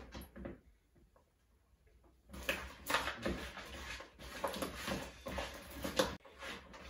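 Chicken wings being tossed in wing sauce in a plastic mixing bowl, with the spatula scraping and knocking against the bowl in irregular soft strokes starting about two seconds in.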